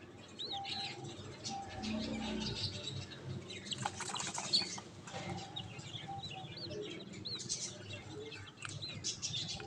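Domestic chicks peeping in short, high chirps every second or two, over scratchy rustling and light tapping.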